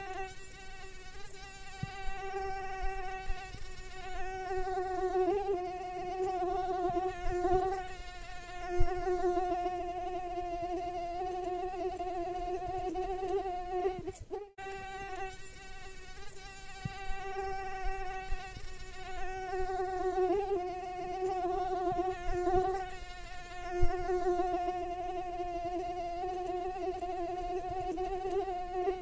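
Mosquito in flight: a steady, high-pitched wingbeat whine with many overtones, wavering slightly in pitch and loudness. It cuts out for an instant about halfway through.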